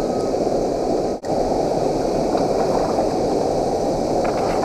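Steady rush of river water pouring over a dam spillway, cutting out for an instant about a second in. A few faint clicks near the end.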